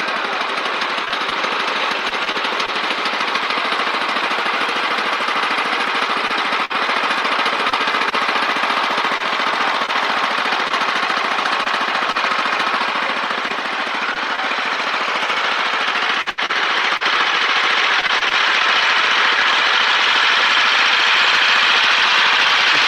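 Small mini-snowmobile engine running steadily, growing louder over the last few seconds.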